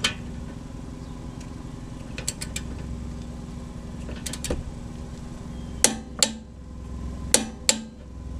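Click-type torque wrench tightening a rear shock's lower bolt: a few light ratchet clicks, then two pairs of sharp clicks about a second and a half apart in the second half, the wrench signalling that the set torque of 70 foot-pounds is reached.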